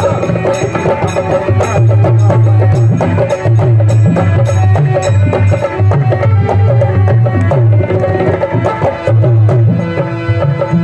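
Instrumental passage of a devotional bhajan: harmonium playing sustained melody notes over a steady rhythmic hand-drum beat with sharp clicking percussion.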